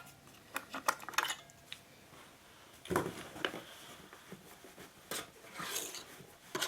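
Batteries being taken out of a watch winder's battery compartment: scattered small clicks and clatter of batteries and hard plastic being handled.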